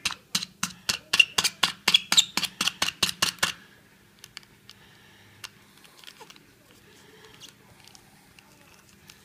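Two layers of aluminium foil stretched over an apple hookah bowl being pierced with a pointed tool: a quick run of sharp clicks, about four a second, for the first three and a half seconds, then only a few faint scattered ticks. The foil is being perforated all over.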